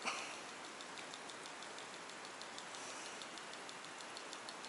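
deps TODDRAT blade surface lure being retrieved along the surface, its swinging blade knocking against the lure body in a quick, even clicking of about five or six clicks a second, the 'kako kako' that draws bass. One sharper, louder knock right at the start.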